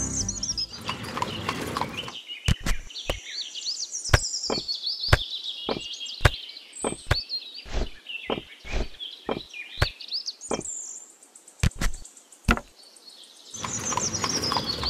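Miniature clay bricks clicking as they are picked up one by one and dropped into a small bamboo basket: about twenty sharp clicks at an uneven pace, over chirping birdsong. Music fades out at the start and comes back near the end.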